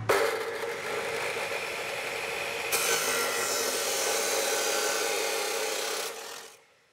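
Makita M2403 355 mm abrasive cut-off saw starting up and cutting steel under load, with a steady motor tone under the grinding of the wheel. The grinding gets harsher a little under three seconds in, and the sound fades out near the end.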